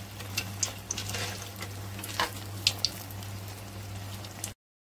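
Sweet rice-and-banana appam batter frying in hot oil: a steady sizzle with scattered pops and crackles over a low steady hum, stopping abruptly near the end.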